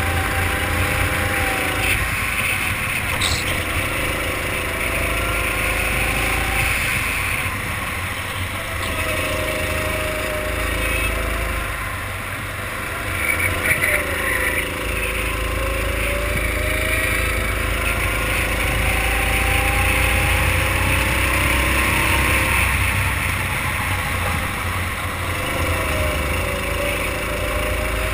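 Racing kart engine at full throttle, its pitch climbing along each straight and dropping back into the corners, several times over, with wind noise on the onboard microphone.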